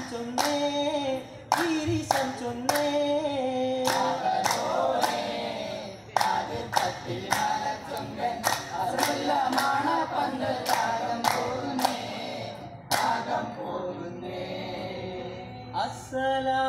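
Vattappattu troupe of men singing together in unison, keeping time with a steady beat of group hand claps. The clapping thins out in the last few seconds while the singing carries on.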